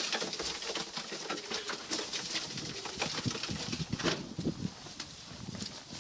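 Tippler pigeons cooing in a loft, a run of short low calls, with a few knocks and scuffles among them.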